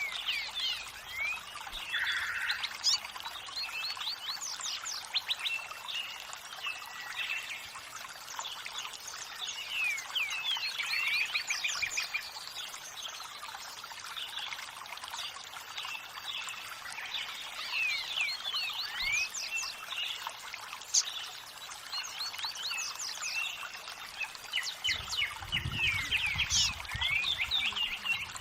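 Many small birds chirping and calling in quick short notes over the steady rush of running water, with a low rumble coming in near the end.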